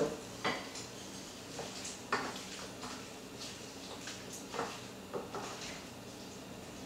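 Wooden spatula stirring a stew of chicken and apples in stock in a stainless steel sauté pan, giving a handful of light, spread-out knocks against the pan.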